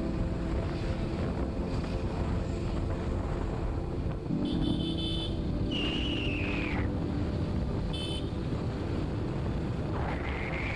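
Road traffic with a constant low rumble of wind and road noise; vehicle horns honk briefly about halfway through and again a few seconds later. A whistle-like tone falls away just after the first horn, and another rises near the end.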